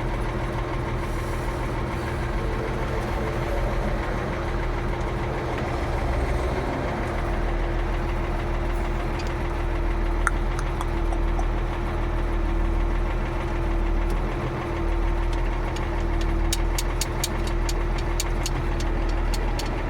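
Ford 9700 tractor's six-cylinder diesel engine running steadily at low speed, a constant hum. A quick series of light ticks comes in near the end.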